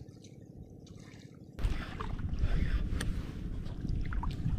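Wind buffeting the microphone, starting abruptly about a second and a half in and staying loud, over faint sounds of water.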